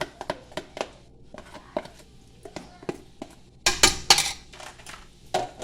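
Kitchen utensils clinking and tapping against cookware in a run of short sharp clicks, with a louder burst of clattering and scraping about four seconds in.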